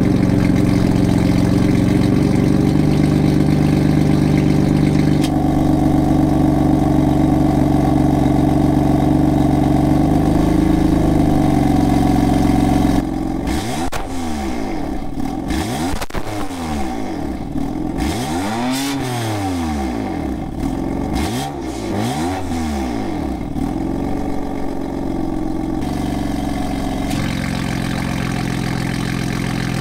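BMW M4's S55 twin-turbo inline-six, breathing through a VRSF high-flow single midpipe, heard at the exhaust tips. It idles steadily, then is revved about three times, the pitch rising and falling with each rev, and settles back to a steady idle with the exhaust flaps open near the end.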